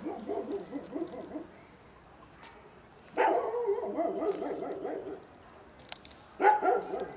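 A dog barking in three bouts, each lasting one and a half to two seconds, with pauses between them.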